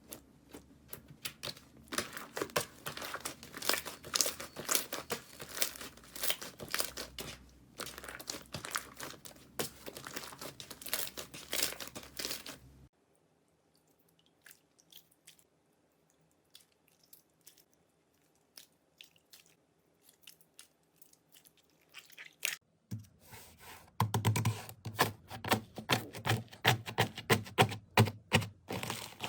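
Hands squishing and pressing slime, making rapid crackling, crunching and popping clicks. About halfway through, the sound drops to faint scattered pops for roughly ten seconds, then loud squelching and crackling resume near the end.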